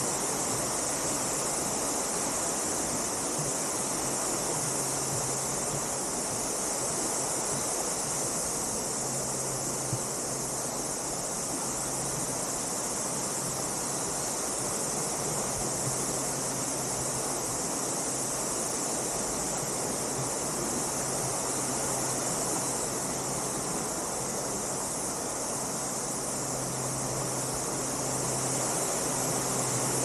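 Steady high-pitched insect chorus, unbroken throughout, over the even rush of flowing stream water.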